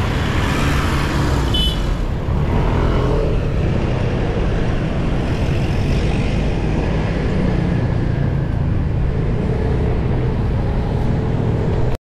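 Steady road traffic noise of cars and other motor vehicles, heard from a bicycle riding among them, with a brief high tone about two seconds in.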